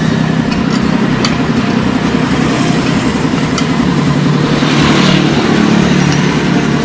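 Motorcycle engine running steadily, with a few faint clicks over it and a slight rise in level about five seconds in.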